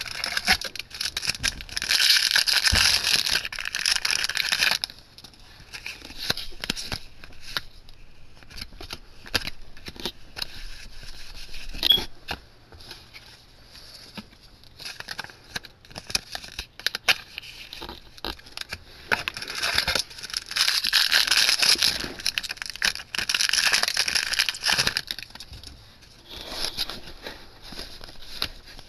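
Yu-Gi-Oh! booster packs' foil wrappers being torn open and crinkled, in two long stretches of loud crackling, about two seconds in and again around twenty seconds in. Between them come quieter clicks and slides of trading cards being handled and laid down.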